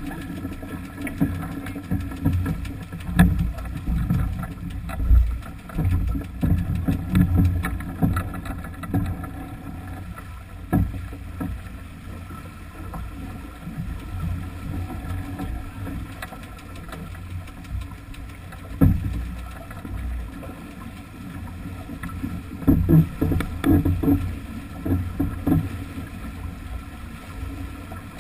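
Sailing yacht under way under sail: water rushing and splashing along the hull, with wind buffeting the microphone in irregular gusts.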